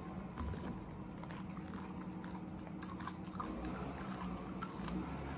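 Close-miked chewing of beef bulalo, with small sharp mouth clicks scattered throughout, over a steady low background hum.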